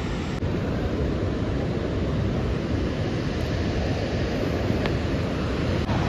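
Steady rushing roar of the distant Detian–Ban Gioc waterfall.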